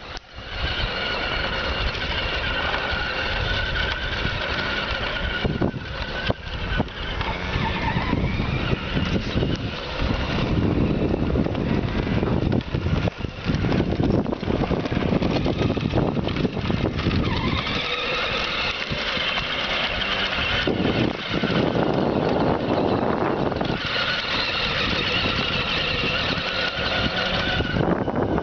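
Small youth quad ATV's engine running as it is ridden around on dirt, its pitch rising and falling with the throttle. It is loudest in three stretches: at the start, about two-thirds through, and near the end.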